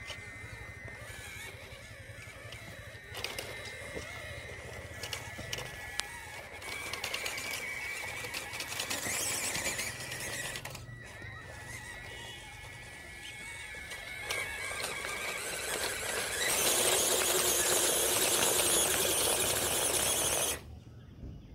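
Electric motor and gearbox of a 1/18 scale RocHobby Unimog RC crawler giving a high, thin whine that rises and falls with the throttle as it climbs over rock and loose stones. Near the end, a loud rushing noise lasts about four seconds, then cuts off suddenly.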